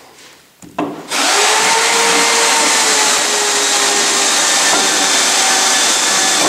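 A motor-driven machine switches on about a second in and runs steadily: a loud, even rushing noise with a faint whine over it.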